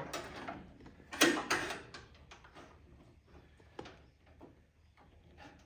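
Steel paintless-dent-repair whale tail tool scraping and clicking against the metal inside a car fender as it is worked into position behind a dent. Irregular clicks and scrapes, the loudest about a second in, then fainter ones.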